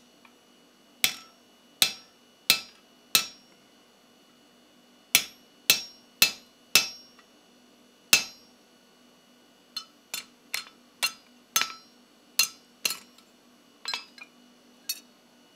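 Hand hammer striking a steel hole punch driven into a hot steel hook blank over a bolster block, each blow a sharp metallic ring. About nine heavier blows come in the first eight seconds, then after a short pause a quicker run of lighter strikes.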